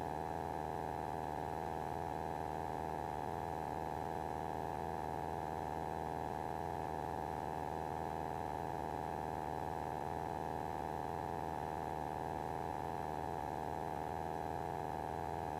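Steady, fairly quiet hum of a light aircraft in flight, heard through the cockpit headset intercom feed rather than the open cabin: a low drone with a few constant tones, unchanging throughout.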